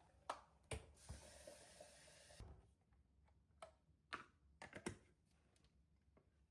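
Light clicks and knocks of objects being handled, with a soft hiss lasting about a second and a half near the start.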